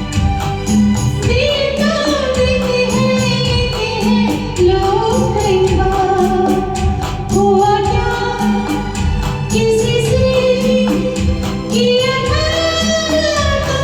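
Music: a sliding, sustained melody line over held chords and a steady, even beat, with no words sung.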